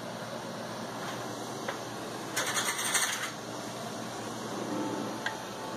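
Steady hiss of a large pressure canner heating on a gas burner as the water inside comes to the boil, just before steam starts venting from the open vent pipe. About two and a half seconds in, a brief louder burst of hiss.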